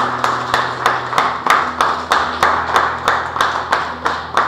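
Audience applauding in rhythmic unison, the claps coming together at about four a second.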